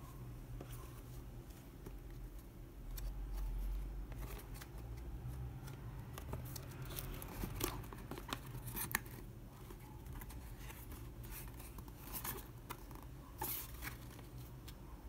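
A small printed cardboard box being handled: its tuck flaps are opened and folded back, making scattered scrapes and sharp clicks, busiest through the middle, over a faint low hum.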